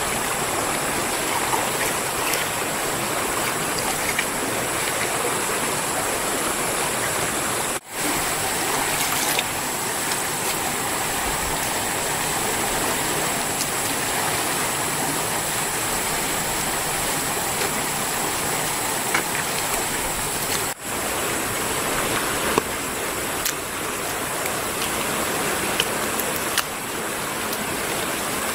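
Steady rush of a flowing river. It cuts out briefly twice, and a few light clicks come in the later part.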